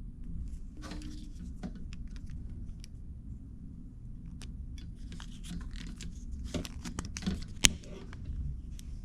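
Small parts being handled and worked as an insert barb is fitted into the end of a Kevlar-braided hydraulic brake hose: irregular scraping and light clicks, with one sharp click about three-quarters of the way through.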